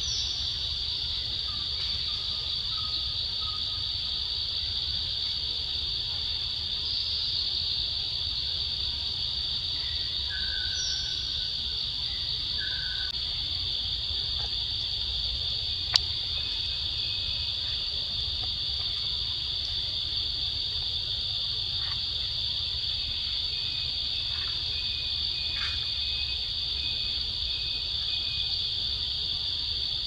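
Steady, high-pitched chorus of forest insects running without a break. A few faint short calls sound in the background, and there is one sharp click about halfway through.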